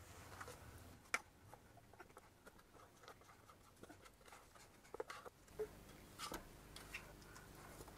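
Near silence with a few faint taps and scrapes as Oreo nougat mixture is poured and scraped from the Thermomix bowl into a plastic tub.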